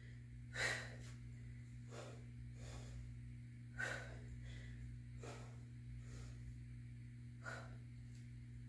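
A woman breathing with the effort of dumbbell lateral lunges: about six short, faint exhalations at uneven spacing, over a steady low hum.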